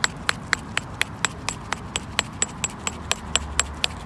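Small hammer tapping steadily on a rusty, stone-encrusted metal find to knock the crust off: about four sharp metallic taps a second.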